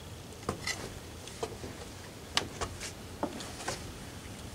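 A handful of short, sharp clicks and taps of a fork and tableware on plates at a metal mesh patio table while people eat.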